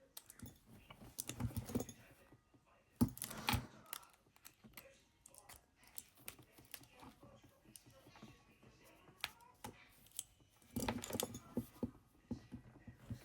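Small metallic clicks and rattles of a pair of handcuffs as a pick tool is worked in the cuff's lock. They come in three short spells: the first starts just after the beginning, the loudest comes about three seconds in, and another comes near the end.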